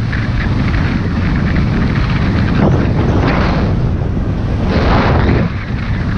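Wind buffeting the camera's microphone during a fast ski descent, a loud steady rumble, with swells of hiss as the skis scrape through the snow on the turns, about two and a half, three and a half, and five seconds in.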